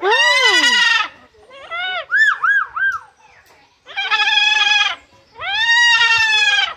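A white cockatoo calling: a long loud call, then a run of short rising-and-falling notes, then two more long loud calls.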